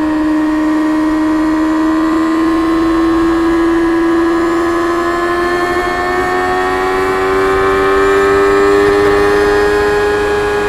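Stock 2024 Kawasaki Ninja ZX-6R's 636 cc inline-four engine running under way through its stock exhaust, holding a steady high note whose pitch creeps slowly upward as the revs build.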